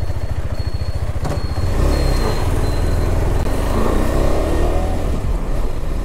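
KTM 390 Adventure's single-cylinder engine running under way, its note rising as the bike accelerates.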